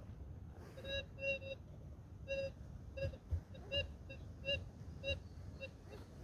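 Minelab Gold Monster metal detector sounding on a target as its coil is swept over a dug hole: a short, pitched beep on each pass, about two a second, some with a slight upward bend.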